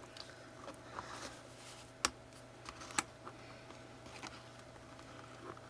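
Scissors snipping at the packaging that holds a small toy figure in its cardboard box: soft clicks and snips, with two sharper snaps about two and three seconds in. The scissors are struggling to cut.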